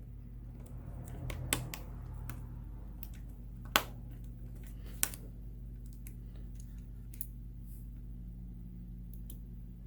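A few sharp, scattered clicks and taps as a small part is fitted back into an opened smartphone, over a low steady hum.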